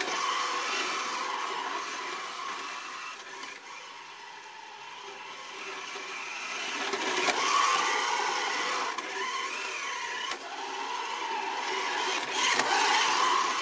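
Electric motor of a battery-powered remote-control toy car whining, its pitch rising and falling as it speeds up and slows down, with a couple of sharp knocks.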